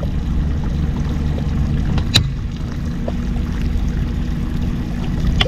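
An engine idling, a steady low hum, with one sharp click about two seconds in.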